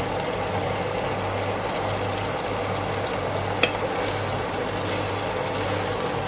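Steady hum and hiss of a kitchen stove while a pan of thick chicken curry is stirred with a steel spoon; one sharp click of the spoon against the pan about three and a half seconds in.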